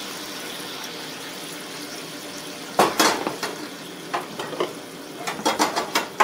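Chicken and onion sizzling in a hot wok with chicken broth, a steady hiss. From about three seconds in, a metal spatula stirs and clinks against the wok in a run of sharp knocks.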